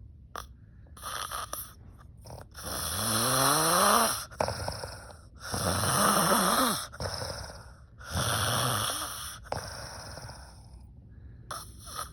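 A sleeping woman snoring loudly: three long snores about two and a half seconds apart, the first rising in pitch, after a shorter, softer one near the start.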